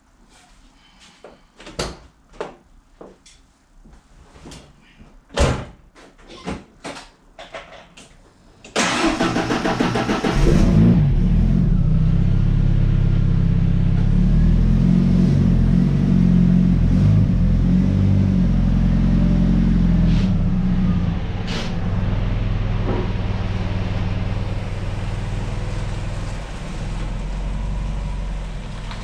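A few clicks and knocks, then a truck engine cranks and starts about nine seconds in and settles into a steady idle.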